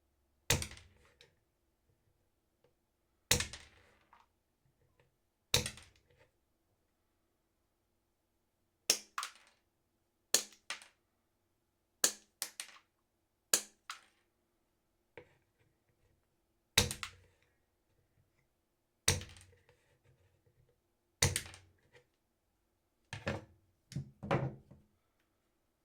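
Electrician pliers cutting through 6 mm² copper wire, a sharp snap at each cut. About fifteen snaps, spaced a second or more apart at first and coming closer together near the end.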